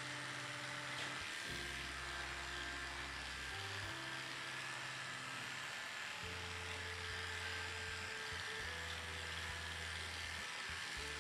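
Electric dog grooming clippers buzz steadily as they shave through a heavily matted coat. Under them runs background music with sustained low notes changing every second or two.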